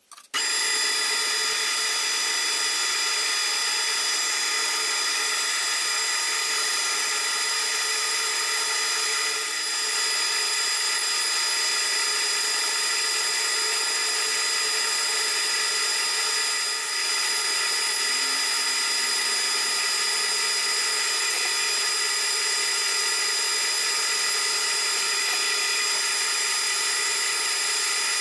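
Deckel FP1 milling machine's horizontal spindle starts up and runs steadily at speed, spinning a three-jaw chuck. A high, even gear whine runs through it.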